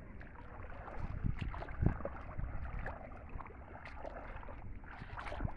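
Shallow water sloshing and splashing as a man wades knee-deep and gathers in a wet cast net, with scattered small splashes over a steady low rumble.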